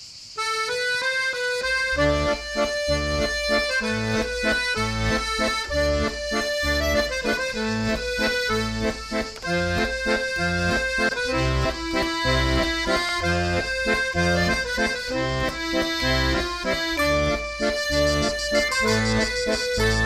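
Background music led by an accordion, in a traditional style, with a steady bass beat under the melody.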